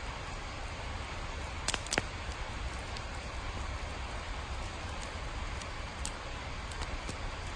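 Steady rain with a low rumble underneath, and scattered drops ticking sharply now and then, a cluster about two seconds in and another near six seconds.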